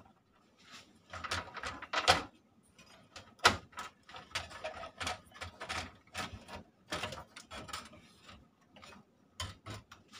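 Hands handling circuit boards and wiring inside an open power amplifier's metal chassis: irregular clicks, knocks and rattles, the loudest a sharp knock about three and a half seconds in.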